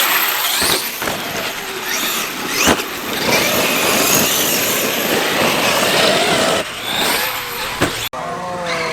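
Large electric RC basher truck driving over dirt: the brushless motor whines, rising and falling in pitch as the throttle is worked, over the rush of tyres on dirt. There is a sharp knock about three seconds in, typical of the truck landing or hitting the ground, and the sound cuts off abruptly near the end.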